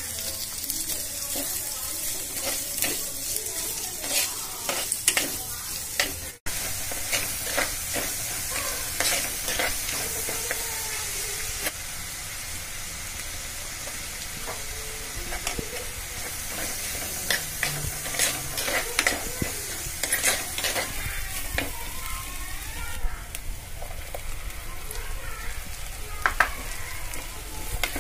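Chopped onions sizzling as they fry in hot oil in a pot, with a steel spoon scraping and knocking against the pot as it stirs them.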